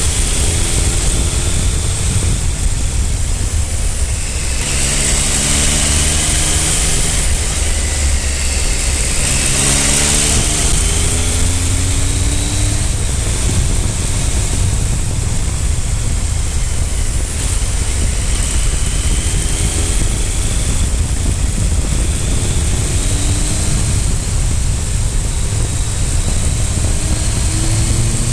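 Triumph Speed Triple 955i's three-cylinder engine under way, its pitch climbing again and again as the bike pulls through the gears, over a steady heavy wind and road rumble.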